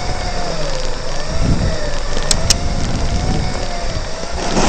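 Segway's electric drive whining, its pitch wavering up and down with speed, over a steady rumble and hiss from riding across rough ground. Two sharp clicks about halfway through.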